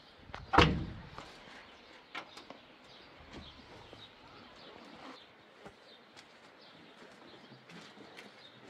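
A single loud knock about half a second in, followed by scattered light clicks and faint bird chirps.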